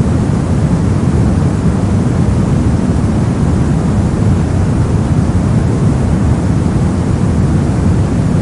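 Brown noise: a steady, even rumbling hiss, strongest in the low end and fading toward the highs, with no change or events.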